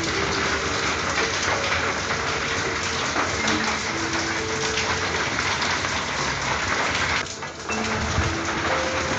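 Steady rain pattering on a corrugated tin roof, an even, dense hiss that dips briefly about seven seconds in.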